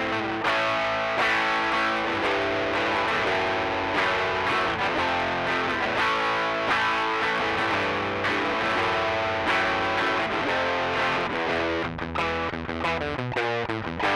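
Electric guitar played through a Rocktron Austin Gold overdrive pedal with the drive set high (3 o'clock) and the pre-bass at noon, giving a driven, distorted tone. The guitar plays a continuous line of notes and chords, with a quick run of notes a little before the end.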